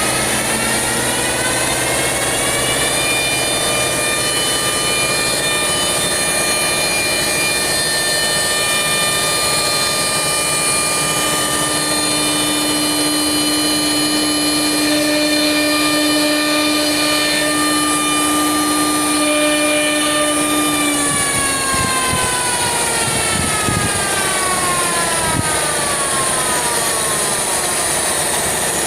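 CNC router spindle whining up in pitch over the first few seconds, running at a steady speed, then winding down about three-quarters of the way through, over a constant machine drone.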